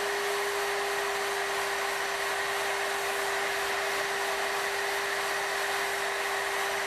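Horizontally mounted router of a multi-router joinery machine running at a steady high pitch while cutting through mortises in oak legs.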